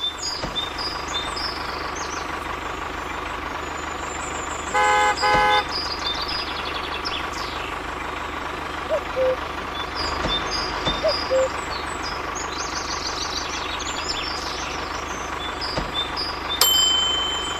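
Two short horn toots about five seconds in, over a steady background hum with frequent high chirps. A sharp click near the end is followed by a held high tone.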